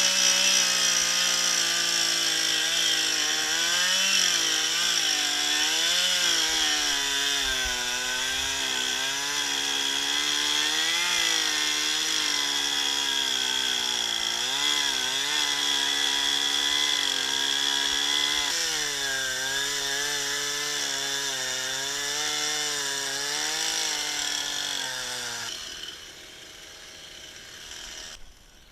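Chainsaw running at high revs while cutting into a tree, its pitch dipping and recovering again and again as the chain bites into the wood. The saw's sound drops away about 25 seconds in.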